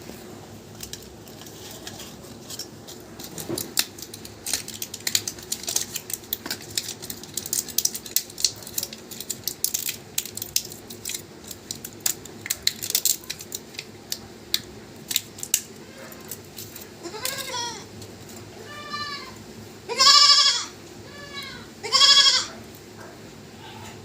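Rapid sharp clicks and crackles, then a goat bleating about six times near the end, the last two calls the loudest.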